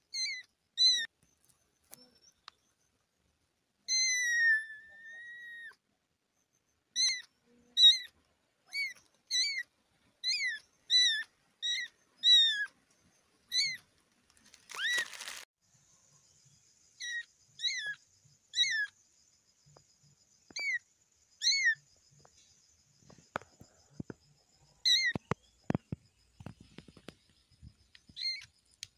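A kitten mewing over and over: short, high-pitched mews, many of them about one a second, and one longer, falling mew about four seconds in. A brief rustle comes about fifteen seconds in, and a few soft knocks near the end.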